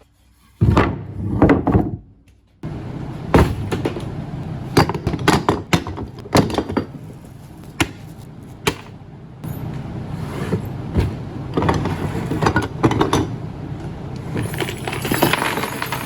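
Workshop knocking and clattering: a dozen or so sharp knocks and clanks of hard objects being handled and set down, in several short stretches that cut abruptly into one another.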